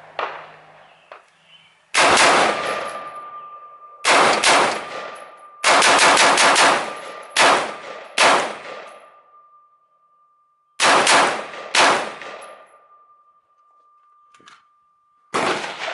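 Noveske Gen 4 Infidel AR-15 in 5.56, with its Flaming Pig flash and blast suppressor, firing about a dozen shots. Some come singly, a second or more apart, and a quick string of five or so comes about six seconds in.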